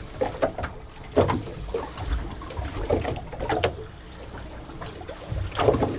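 Sea water lapping and sloshing against the hull of a small boat, in uneven surges.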